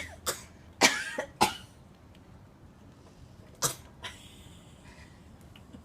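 Coughing: a quick run of short coughs in the first second and a half, the loudest about a second in, then a single cough a little before four seconds in.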